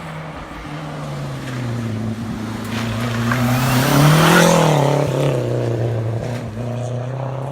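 A modified small racing car's engine running hard as the car drives past at speed: it grows louder, peaks about four seconds in with a slight drop in pitch, then fades as the car pulls away uphill.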